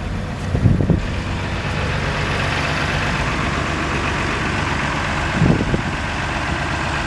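Tractor engine running steadily while the tractor and muck spreader are stuck in soft mud. Two dull knocks, about a second in and again about five seconds in.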